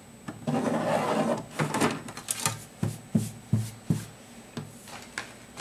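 Graphite pencil scratching around the inside of a plastic circle template as a circle is traced on paper, followed by a series of short light knocks and clicks, about two a second, as the template is handled and lifted away.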